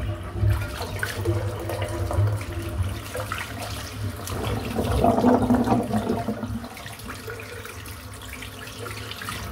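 Water running and swirling in a bathroom sink as the soapy basin is changed for a fresh sinkful. It is loudest about halfway through and quieter near the end.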